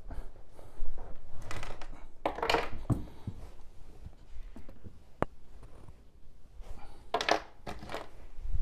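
Irregular handling noises of furniture and objects being moved by hand: scuffs and rustles, a couple of sharp clicks, and low knocks. No vacuum is running.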